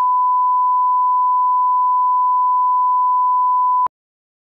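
Steady 1 kHz line-up test tone played with colour bars, a single unchanging pure tone that cuts off suddenly about four seconds in.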